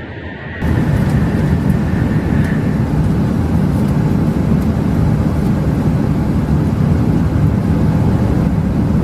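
Boeing 737 jet noise, a loud, steady rumble that cuts in abruptly just over half a second in and holds without a break.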